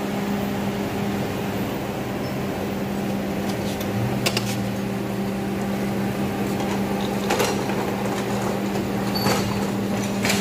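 Ford Grand Marquis 4.6-litre V8 idling with a steady hum; a lower tone joins about four seconds in, and a few sharp clicks come through.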